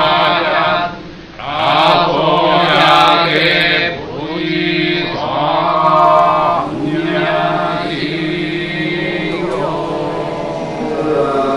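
Buddhist sutra chanting at a memorial service: a steady, held recitation with a brief pause for breath about a second in.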